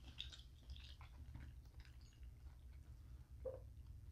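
Faint chewing with soft mouth clicks, over a steady low hum.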